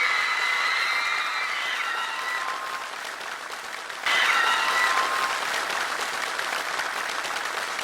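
Studio audience applauding and cheering, with high-pitched fan screams over the clapping; it jumps suddenly louder about four seconds in.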